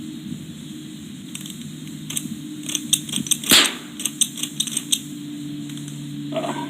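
A quick, uneven run of light metallic clicks and clinks, with one louder, sharper burst about three and a half seconds in, over a steady low hum.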